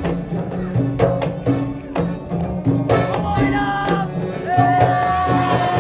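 Malay zapin dance music: drums keep a steady beat under a melody line, with a long held note from about four and a half seconds in.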